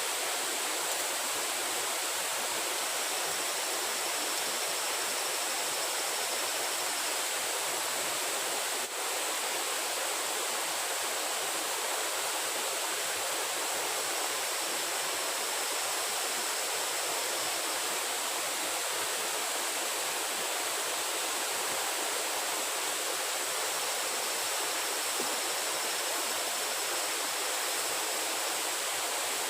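Steady rushing of running water, unbroken throughout, with a faint high whine that comes and goes three times.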